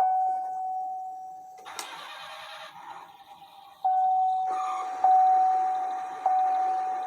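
Toy Chevrolet Camaro SS playing its recorded sound effects through its small speaker. A single-tone GM warning chime repeats, struck a little more than once a second. About two seconds in it gives way to a recorded engine-start sound. About four seconds in the chime resumes, soon with a recorded engine running under it.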